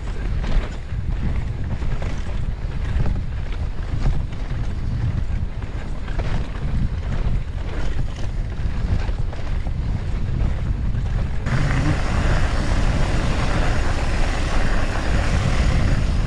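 Wind buffeting the camera microphone with a heavy low rumble and scattered clicks. About eleven seconds in, a louder, brighter hiss sets in.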